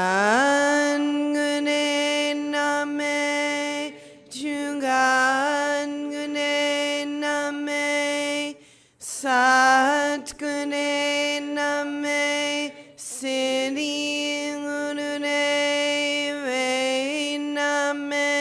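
A woman chanting a Kundalini yoga mantra solo, unaccompanied, in long held notes. It comes in four phrases of about four seconds each, with short breaths between.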